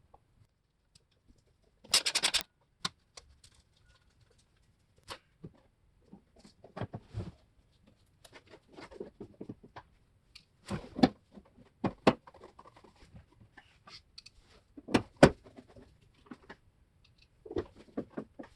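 Irregular clicks, knocks and short scraping noises of hands-on work, sharpest at about two seconds in and around eleven and fifteen seconds, with quiet gaps between.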